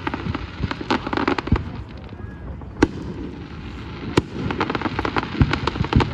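Aerial fireworks display bursting: single loud bangs a few seconds in, with clusters of rapid crackling about a second in and again near the end.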